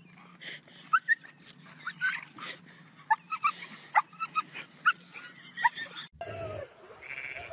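A dog whining and yelping in many short, high-pitched cries over a steady low hum. About six seconds in it cuts off suddenly, and a sheep bleats in one lower, drawn-out call.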